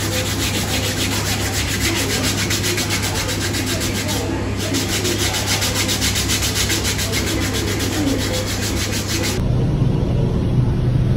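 Loud, steady scratchy rubbing noise, like something rubbing directly over the microphone, with faint voices underneath. It cuts off suddenly near the end.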